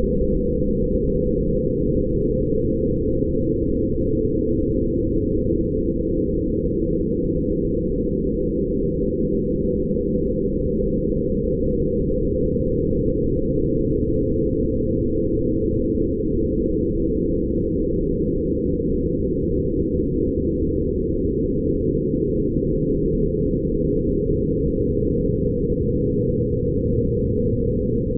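Steady, deep meditative drone made by running photographs of light through sound-editing software (image sonification): many close humming tones together, all low in pitch, holding an even level without breaks.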